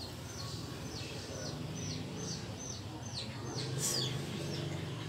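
A small animal calling: a regular series of short, high chirps, each falling in pitch, about three a second, over a low steady hum.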